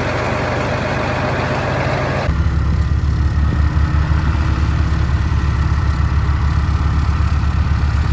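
Heavy diesel farm machinery engine running steadily. About two seconds in the sound changes abruptly to a deeper, louder low throb.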